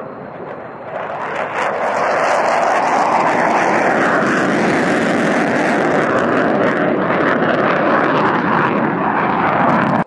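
F-15E Strike Eagle's twin Pratt & Whitney F100 turbofan engines at takeoff power as the jet climbs out: a loud, steady jet roar that swells about a second in and cuts off suddenly at the end.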